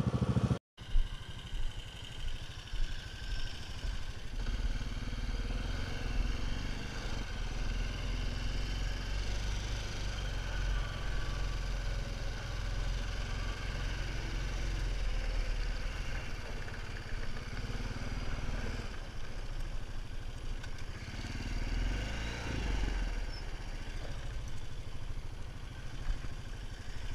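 Honda TRX500FA ATV's single-cylinder engine running steadily while the quad is ridden, its note swelling a little now and then.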